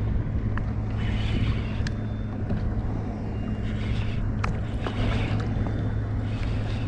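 A steady low hum under scattered sharp clicks and a few short rushes of hiss, as a weakfish is fought on rod and reel from a fishing kayak.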